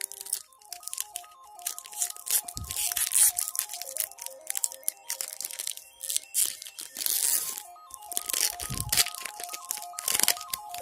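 A foil booster-pack wrapper being torn open and crinkled in the hands, with irregular crackling rustles, over background music with a light stepping melody.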